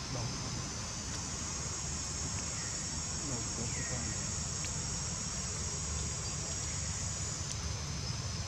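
Steady high-pitched insect chorus, over a low steady rumble.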